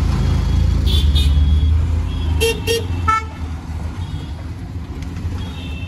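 Auto-rickshaw engine running, heard from inside the open cabin while riding in traffic, with vehicle horns tooting: a short toot about a second in, two quick toots and a fast string of beeps about halfway, and a longer horn near the end.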